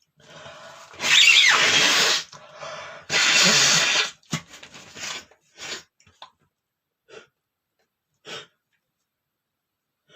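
A man sneezing twice without covering his mouth: a breathy intake, then two loud sneezes about two seconds apart, followed by a few short breathy sounds.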